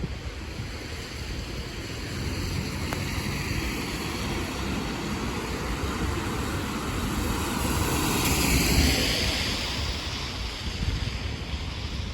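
Traffic on a wet road: the steady rumble and spray hiss of tyres on wet tarmac, swelling as a vehicle passes about eight to nine seconds in and then fading.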